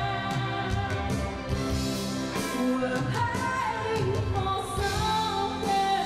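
Live band music: a woman singing into a microphone over electric guitar and drums, with regular drum and cymbal strokes under the held sung notes.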